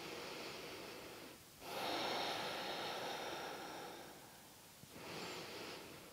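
A woman's slow, deep breathing: three long breaths, the middle one about two and a half seconds long and the loudest, with short quiet gaps between them.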